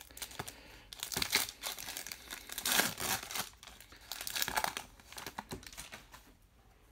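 Foil wrapper of a baseball card pack crinkling and tearing as it is opened by hand, in irregular bursts, then the cards being slid out of it.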